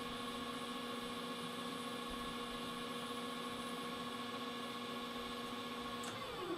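Metal lathe running steadily, a hum of several steady tones. Near the end a tone falls in pitch.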